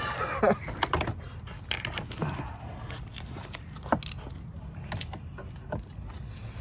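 Scattered sharp clicks and knocks of bumper parts and hardware being handled, over steady garage background noise, with a brief voice near the start.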